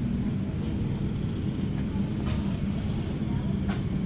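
Steady low rumble of a double-decker bus's engine and running gear heard from inside on the upper deck, with a few faint clicks and rattles and a brief soft hiss near the middle.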